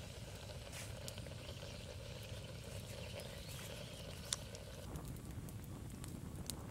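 Open wood fire crackling under a clay cooking pot: scattered sharp snaps and pops, one louder snap a little after four seconds, over a steady low outdoor rumble.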